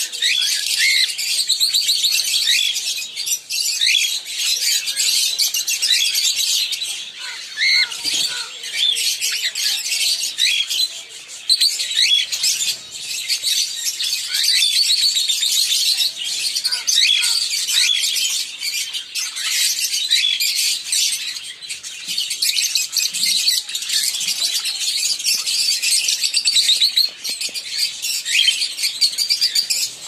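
A flock of cockatiels chirping and chattering, many short high calls overlapping without a break.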